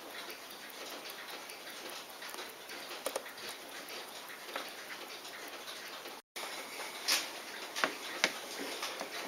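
Small, faint metal ticks and clicks as a watchmaker's screwdriver works on a Poljot Signal alarm watch movement. A brief dropout comes a little over six seconds in, followed by several sharper, louder clicks of small metal parts.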